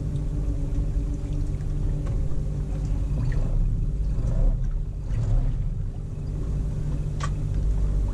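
Fishing boat's engine running with a steady low hum, water sloshing around the hull, and a single sharp click a little past seven seconds in.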